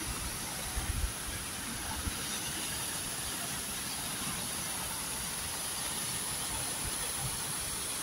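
Steady rush of water from a rocky mountain stream and a waterfall splashing into its plunge pool, with a few low bumps about a second in.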